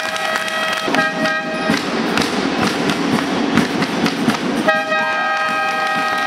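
Spectators' air horns blowing a long held chord of several steady tones, the blast cutting off a little under 2 s in and another starting near 5 s, over crowd noise with many sharp claps and knocks from the stands.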